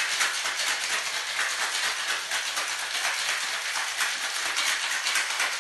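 Ice cubes rattling fast and steadily inside a stainless-steel cocktail shaker being shaken by hand, chilling and mixing a drink.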